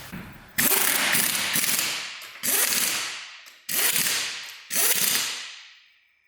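Impact wrench run in four bursts, each starting suddenly and fading out over about a second, driving home the bolts of the front subframe and steering rack.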